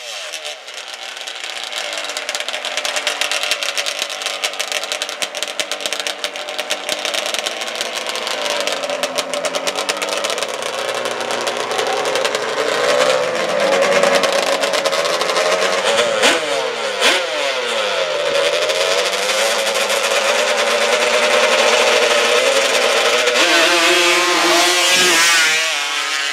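Two-stroke drag-racing quad engines with expansion chambers, revving repeatedly with the pitch rising and falling, with a couple of sharp rev sweeps about two-thirds of the way through. Near the end the engines are held high as the quads launch at full throttle.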